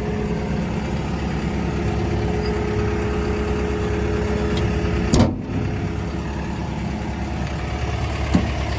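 Komatsu PC170LC-10 excavator's diesel engine idling steadily, with a single sharp knock about five seconds in.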